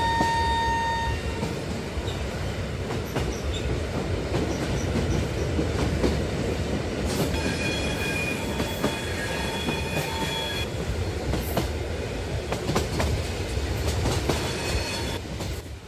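Train running past with rolling rumble and wheel clatter. A horn blast cuts off about a second in, and a fainter, higher steady tone sounds from about seven to ten seconds in.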